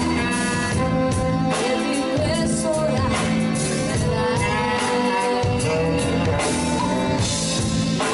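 Live band music: a 1970s Italian pop song played by a band, a sustained melody line over a steady accompaniment.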